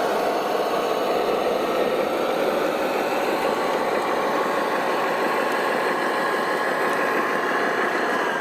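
Radio-controlled model heavy truck running steadily: a dense mechanical whir from its motor and gears, with a faint high whine that rises slightly near the end.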